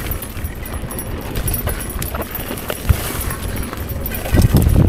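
Mountain bike rolling down a rough, overgrown dirt singletrack: tyre noise on dirt and rock with irregular clicks and knocks from the bike, and shrubs brushing past. A louder run of low bumps comes near the end.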